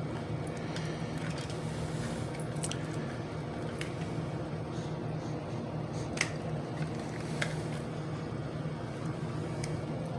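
Plastic power bank case being worked apart by hand, giving a few scattered sharp clicks and creaks as the halves and battery pack shift. A steady low hum lies under it.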